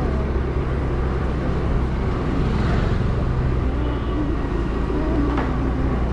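Motorcycle engine running steadily while riding slowly, heard from the rider's helmet.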